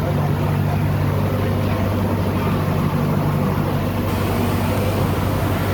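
Boat engine running steadily, a constant low drone under a wash of noise.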